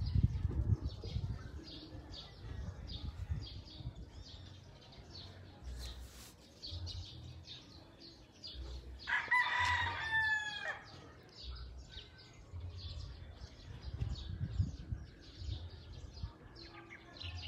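A rooster crowing once, about nine seconds in, a call of just under two seconds that falls slightly in pitch. Steady high chirping runs underneath.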